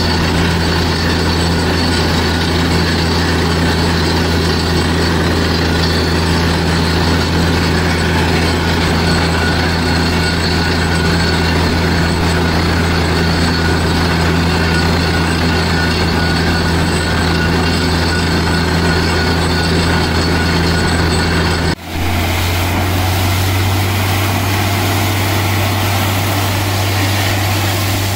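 Truck-mounted borewell drilling rig running steadily while drilling: a loud engine drone with the hiss of air blowing dust out of the borehole. About 22 seconds in it changes abruptly to a similar drone with a stronger hiss as air and water spray from the hole.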